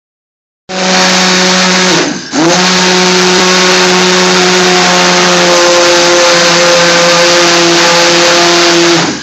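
Immersion blender motor running at full speed with its blade in a steel bowl of cooked onion curry base gravy, puréeing it smooth. It starts about a second in, briefly slows and picks up again about two seconds in, then runs steadily until it stops just before the end.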